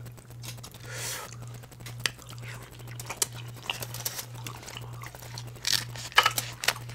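Eating a seafood boil: chewing and crunching, with scattered sharp clicks and a cluster of louder cracks near the end.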